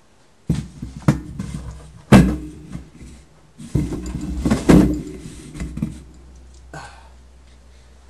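A series of knocks and thumps over a low rumble, the loudest about two seconds in: someone moving about and searching a room for scissors.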